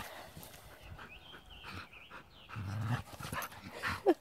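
Two dogs play-wrestling: panting and scuffling, with a short low growl about two-thirds of the way in and a brief falling whine near the end.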